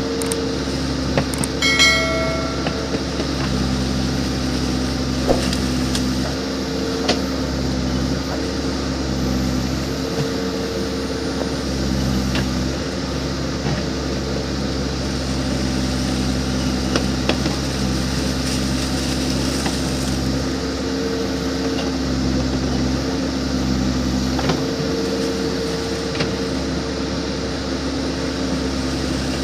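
Backhoe loader's diesel engine running steadily under work, its note and hydraulic whine shifting every few seconds as the arm and bucket are worked. A ringing metal clank comes about two seconds in, with a few lighter knocks later.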